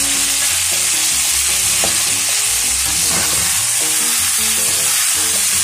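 Minced meat and vegetables frying in oil in an aluminium pan, sizzling steadily as a spatula stirs them through.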